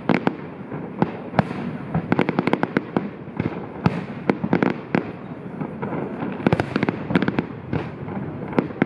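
Fireworks going off in a rapid, irregular string of sharp bangs and pops over continuous crackling.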